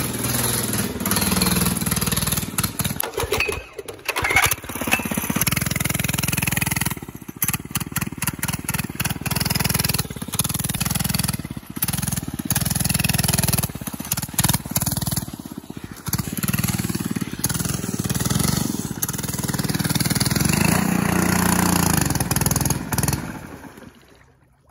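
Small mini bike engine running at changing revs through several short riding clips. Near the end it dies away as the bike sits in a muddy puddle; the rider blames cutting out in the water on a cold motor.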